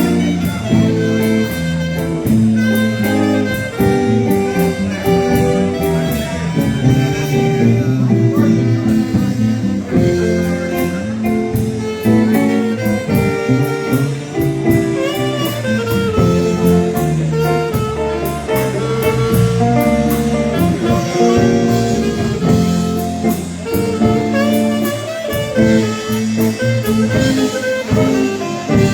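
Live polka dance band playing a tune, with sustained melody notes over a steady drum beat.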